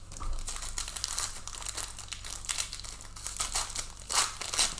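Plastic crinkling and rustling in quick, irregular crackles as trading cards and their plastic wrappers and sleeves are handled.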